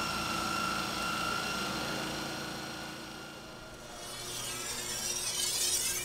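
A bench grinder runs with a steady whine while the steel edge of a Damascus saber is ground sharp against its abrasive wheel, a hiss of metal on grit. Toward the end a sweeping high hiss comes in.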